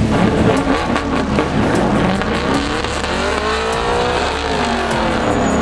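Pickup truck engine revving hard on an autocross run. Its pitch climbs and then drops around the middle as the truck accelerates and lifts between cones.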